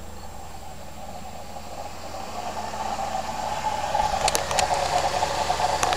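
1998 Camaro's 3800 V6 engine running with a rattling, bearing-like whir that gets louder from about halfway through, with a couple of sharp clicks near the end. The owner hears this noise only while the engine is cold and suspects the water pump or a bad pulley bearing.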